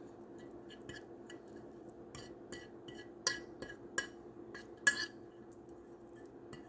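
A utensil stirring an olive oil and herb seasoning in a small bowl, with irregular light clinks against the bowl. Three louder knocks come about three, four and five seconds in.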